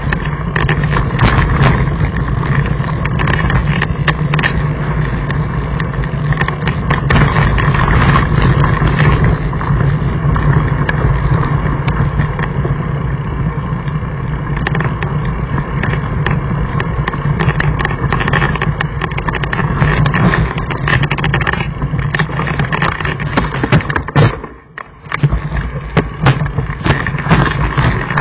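Mountain bike rolling fast over a rocky gravel trail, heard from a camera clamped under the saddle: a constant rumbling rattle with many sharp knocks from stones and bumps. It drops away briefly for about half a second near the end, then resumes.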